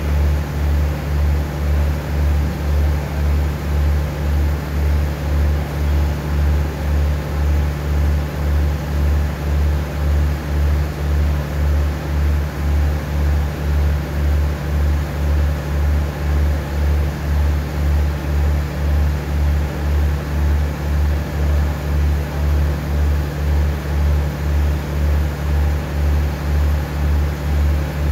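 Stationary diesel passenger train idling at the platform: a loud, steady low drone that swells and dips evenly about one and a half times a second.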